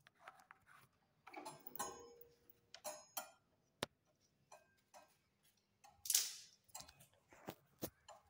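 Metal barrel bolt on a door being handled: a run of small metallic clicks, knocks and rattles, with a longer scrape of the bolt about six seconds in.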